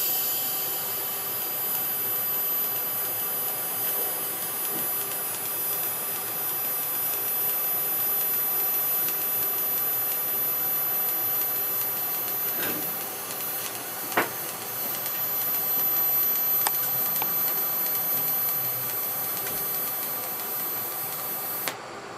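TIG welding arc burning steadily on thin 0.8 mm sheet with a 3 mm tungsten electrode: an even hiss with a thin high whine and a few small crackles. It cuts off suddenly about a second before the end.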